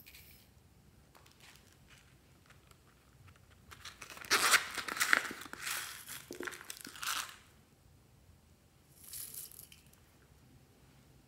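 Loose plastic sequins poured from a plastic container into a palm, a dense crinkly rattle lasting about three seconds, followed a couple of seconds later by a brief, lighter sprinkle as they are scattered.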